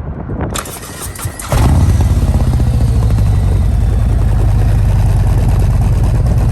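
Harley-Davidson Milwaukee-Eight V-twin with an S&S Sidewinder 2-into-1 exhaust being started. The starter cranks briefly, the engine catches about a second and a half in, and it settles into a loud, steady idle.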